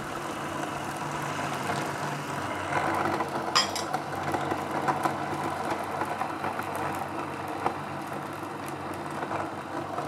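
Food processor running steadily, its motor humming as the blade chops a sticky mix of dates, sunflower seeds and cacao that is still chunky. A single sharp knock sounds about three and a half seconds in.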